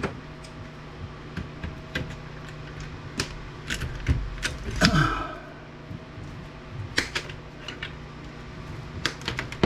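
Irregular light clicks and clinks of hand tools and loose parts being handled while an APC battery backup unit is taken apart, over a steady low hum.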